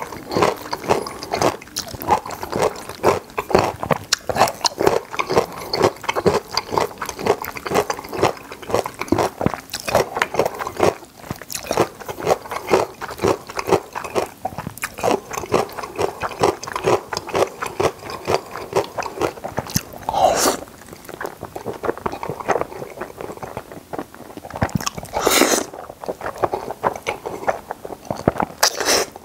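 Close-miked chewing of creamy carbonara spaghetti: a steady run of wet, smacking mouth clicks. Three longer slurps of noodles stand out, about 20 seconds in, about 25 seconds in and right at the end.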